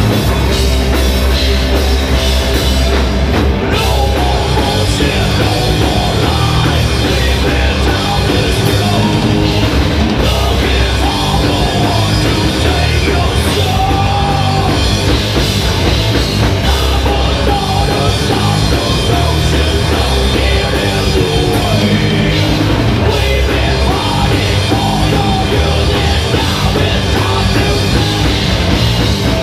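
Live rock band playing loud, continuous music: distorted electric guitar, bass guitar and a full drum kit.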